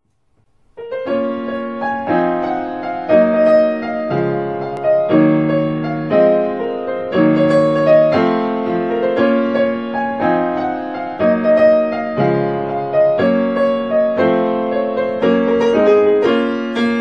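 Background piano music, gentle chords changing about once a second, starting about a second in.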